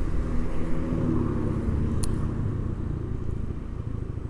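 Carbureted Honda Beat scooter's single-cylinder engine running while riding, then easing off so the sound drops as the scooter slows. A short sharp click about two seconds in.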